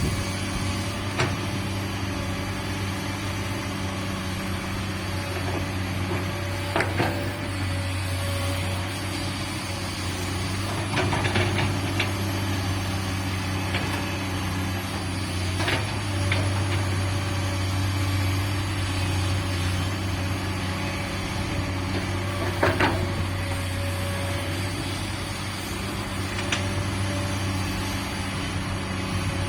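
Komatsu PC200-8 excavator's diesel engine running steadily, with a short sharp knock or clank every few seconds.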